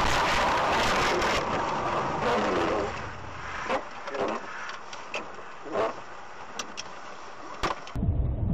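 Car on the road: a loud, steady rushing noise for about three seconds, then quieter, with a few short bursts and some sharp clicks.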